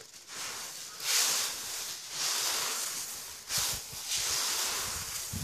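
Dried whole green gram (moong) beans rustling and hissing as hands rub and stir them around a steel plate, in several swells of a second or so; the beans are being worked with a little oil before splitting in a stone mill.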